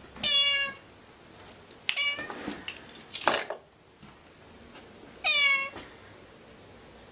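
Domestic cat meowing: two drawn-out meows, one at the start and one about five seconds in, with a shorter call around two seconds in. A brief noisy rush comes about three seconds in.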